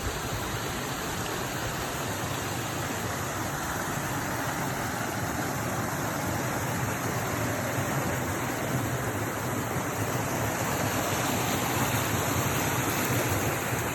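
Creek water rushing steadily, growing slightly louder toward the end.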